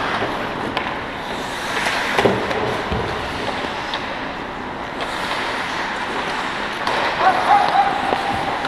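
Ice hockey play close to the goal: skates scraping and carving the ice, with occasional sharp clacks of sticks and puck. A player's held shout comes near the end.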